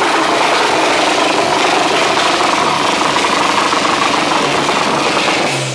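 Anti-lag on a VR41 twin-turbo V6-powered Toyota 86, held on the limiter: a loud, continuous rapid crackle of exhaust pops. Near the end the crackle stops and the revs fall away.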